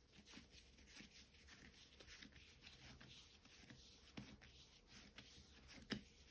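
Faint soft rubbing and tapping of hands shaping a ball of Ramadan pide bread dough on a floured wooden board, with two louder soft thumps, the second near the end.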